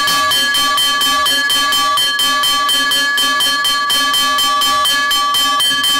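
A hanging metal bell rung rapidly by its pull rope, the clapper striking in an even, quick rhythm of about four to five strokes a second over a steady, continuous ringing.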